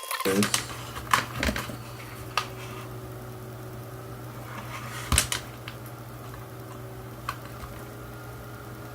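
Scattered clicks and taps of small plastic parts and a screwdriver being handled while a toy quadcopter is taken apart, the loudest knock about five seconds in, over a steady low hum.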